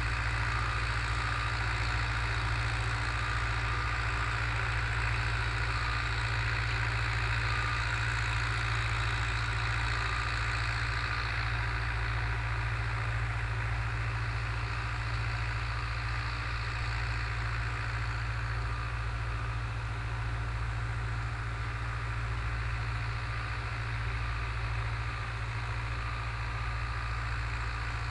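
Long 900 tractor's diesel engine running steadily at a constant speed, a little quieter in the second half.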